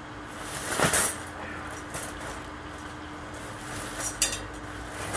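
Wire cage trap being handled, metal rattling and clinking: a louder scraping rattle about a second in and a sharp clink around four seconds in.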